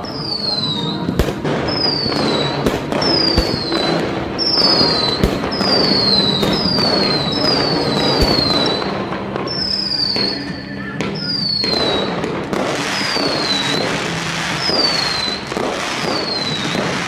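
Fireworks display going off: sharp bangs and crackling over a steady rumble, with a run of high whistles, each falling in pitch, about one a second.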